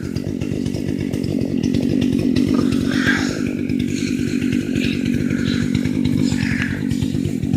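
Chainsaw running steadily, a dense fast-pulsing engine note with no breaks.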